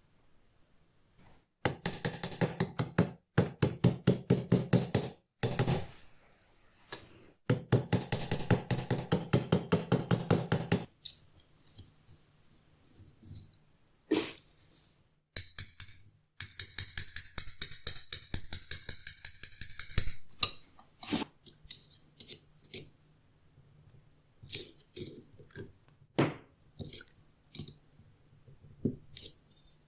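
Quick back-and-forth hand strokes working a metal belt buckle, with metallic clinking. They come in bursts of a few seconds at about seven or eight strokes a second, broken by pauses and single sharp knocks.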